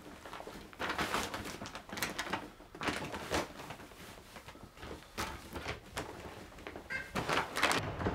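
Rustling and soft knocks of items being handled in a reusable shopping bag, in irregular bursts about a second apart.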